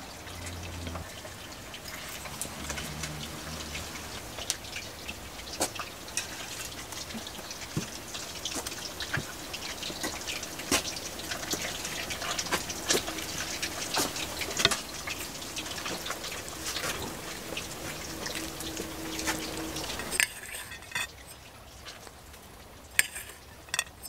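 A wooden spoon stirring and scooping thick sauce in an enamel bowl, and the sauce spooned over fried fish pieces: wet, sticky sounds with many small clicks. It goes quieter about twenty seconds in.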